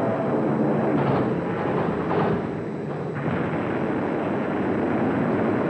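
Battle soundtrack of gunfire and explosions, dense and continuous, with sharper blasts about one and two seconds in.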